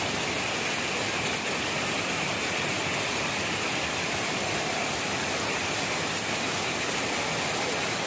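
Water pouring over a low weir and churning white in the pool below: a steady, unbroken rushing.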